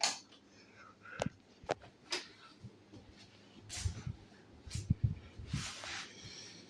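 Several sharp clicks followed by short rustling and low knocks: handling noise from switching a ceiling fan's speed controller to medium-low.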